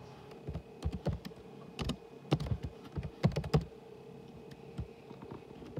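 Typing on a computer keyboard: a quick, irregular run of key clicks for the first three and a half seconds or so, then a few scattered keystrokes.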